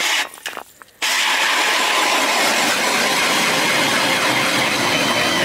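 Cordless drill spinning an ice auger through lake ice: a brief start, then from about a second in a loud, steady run of the motor and auger cutting the ice.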